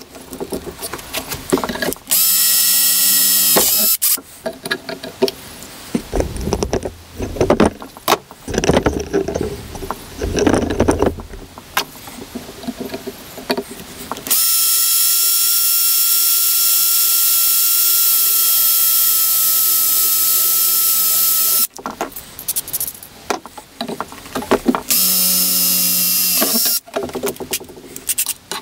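Cordless drill boring holes through a steel engine-mounting plate. It runs in three steady whining stretches: a short one about two seconds in, a long run of about seven seconds through the middle, and another short one near the end. In between, metal clatters and knocks as the plate and drill are handled.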